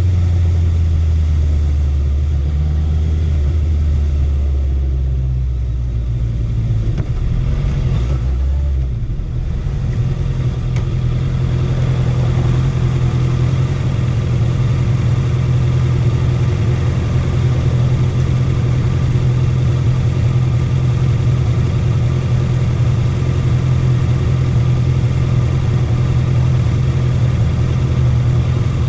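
Honda CB650F inline-four engine running under way, holding a steady note, dipping briefly in loudness and then settling on a higher, steady pitch about nine seconds in as engine speed rises.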